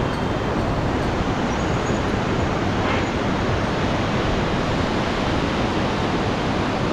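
Steady rushing wind and tyre noise from a mountain bike riding down a forest trail.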